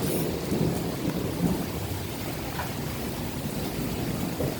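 Steady rain falling in a thunderstorm, an even hiss with a low rumble underneath.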